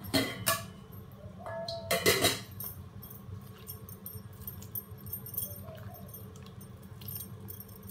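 Metal kitchenware clinking: two sharp clinks in the first couple of seconds, one of them ringing briefly, then faint scattered ticks over a steady low hum.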